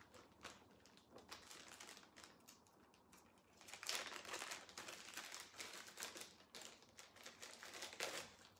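Small jewelry bag being opened and handled: crinkling and rustling with many small clicks and scratches, faint at first and busier from about three and a half seconds in.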